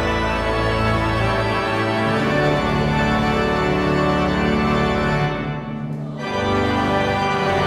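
Church organ playing full sustained chords, with a brief lift between phrases about three-quarters of the way through before the chords sound again.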